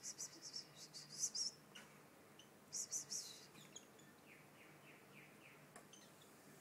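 White-eyes chirping: quick high chirps in a cluster in the first second and a half and again around three seconds in, then a few fainter, lower descending calls.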